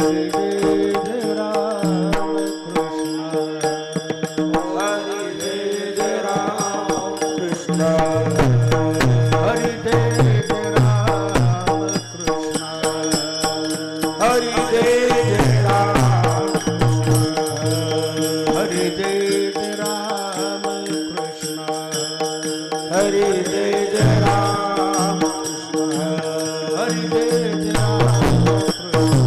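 Devotional kirtan music: a voice chanting a sung refrain over a steady held drone, with a continuous rhythm of small hand cymbals and drum.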